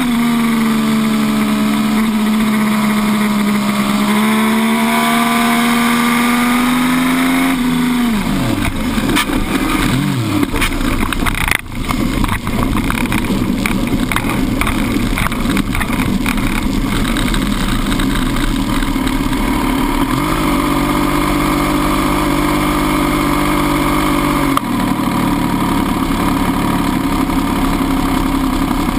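MV Agusta F3 800's three-cylinder engine running at high revs at speed; about eight seconds in the revs drop sharply under hard braking. A stretch of rough noise follows as the bike runs straight off into the gravel trap, and the engine then idles steadily for the last several seconds.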